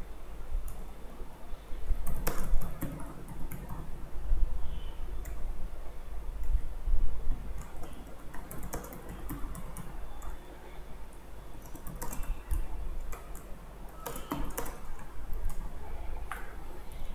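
Computer keyboard typing in several short bursts of clicks, with pauses between them, over a low steady hum.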